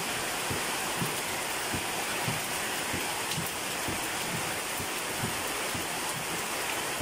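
Steady rain-like hiss with scattered soft low ticks.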